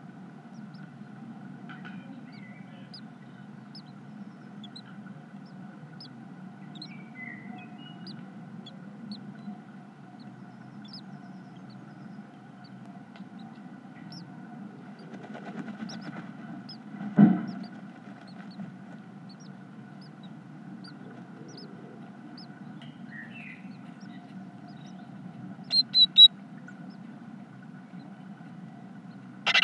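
Great tit nest box with a steady low hum throughout. Over it come faint scattered high peeps from newly hatched great tit chicks and a few short chirps, and past the middle one loud bump in the box. Near the end there are three quick loud high calls from an adult great tit at the nest while the chicks beg, then one more sharp call.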